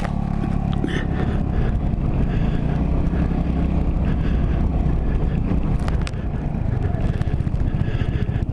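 Motorcycle engine running as the bike rides along, a loud, steady low rumble.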